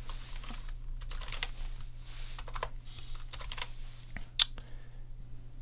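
Typing on a computer keyboard: a few irregular keystrokes, with one sharper, louder click about four seconds in.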